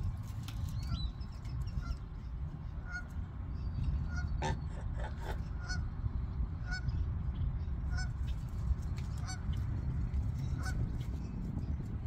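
Domestic geese giving a steady run of short honks, a little more than one a second.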